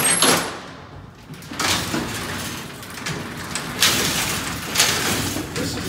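Hand-operated gates of a 1920s Otis freight elevator being pulled shut: the wooden slatted gate comes down at the start, then the metal mesh car gate slides across with a continuous rattle and a couple of sharp clanks.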